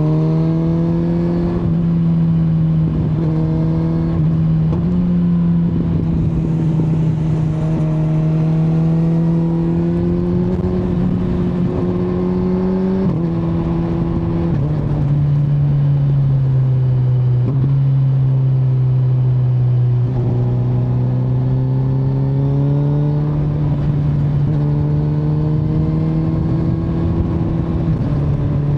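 Kawasaki Z900's inline-four engine running under way. The engine note climbs slowly with the revs and drops sharply at several gear changes through the ride.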